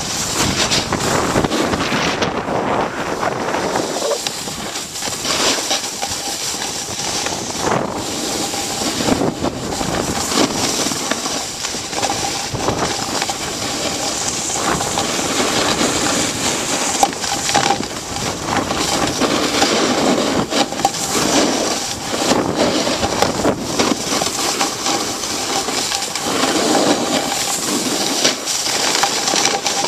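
Skiing down packed snow: an uneven scraping hiss of edges sliding over the snow, mixed with wind buffeting a hand-held camcorder's microphone.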